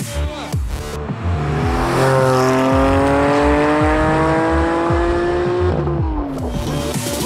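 Porsche 718 Cayman GT4's flat-six engine, breathing through a SCART exhaust with its particulate filters removed, climbing steadily in pitch under acceleration for about four seconds, then falling away near the end. An electronic music beat runs underneath.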